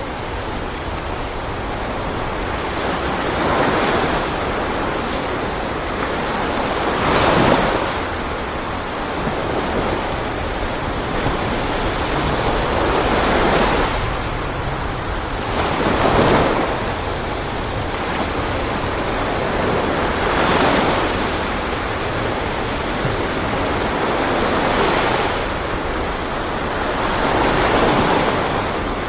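Sea waves washing, a steady rush that swells and fades every few seconds, about seven times.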